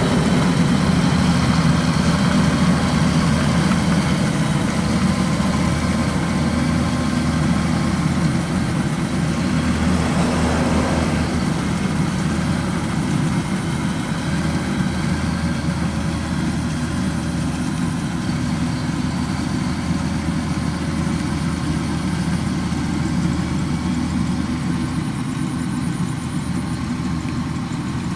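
Kubota DC93 combine harvester's diesel engine running steadily, a deep even hum that eases slightly in level about halfway through.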